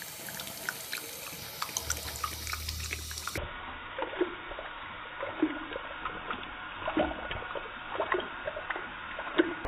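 Small curly-coated dog lapping water from a running bathtub tap: a trickle of water with irregular splashy slurps and drips. From about three and a half seconds in the sound turns duller and lower, slowed down by the slow-motion playback.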